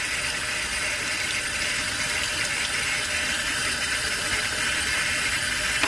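Kitchen faucet running steadily, the stream splashing over and into a small metal nitro RC exhaust pipe fitting held beneath it and into a stainless steel sink, rinsing dirt and oil out of the inside of the pipe.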